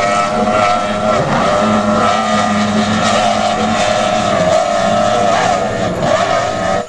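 Twin outboard engines of an offshore racing powerboat running at high speed, a loud steady engine tone that wavers slightly in pitch.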